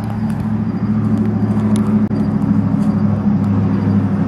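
A steady, loud, low motor hum, building slightly in the first second and then holding even, typical of a vehicle engine running close by.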